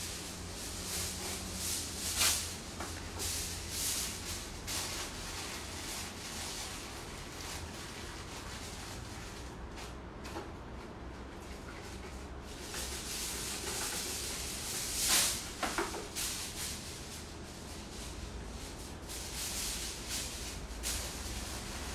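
Aluminium foil rustling and crinkling as it is pulled out, torn and pressed around a metal roasting pan, with a few sharper crackles about two seconds in and again near the middle, over a low steady hum.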